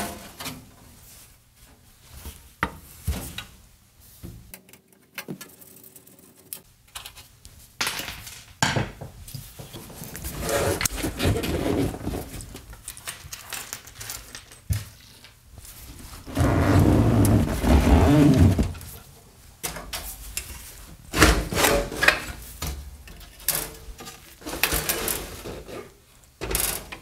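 Handling noise of a heavy Hammarlund SP-600 receiver: irregular knocks, clicks and rubbing of its metal cabinet as it is tipped and set down on a rubber mat, and its chassis slid forward out of the steel case, with a longer scrape about two-thirds of the way through.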